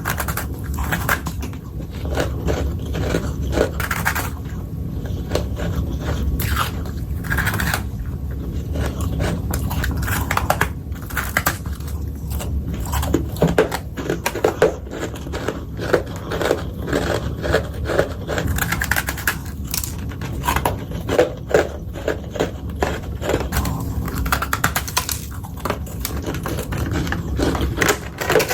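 Close-up crunching and chewing of powdery freezer frost, in many irregular bites and crunches.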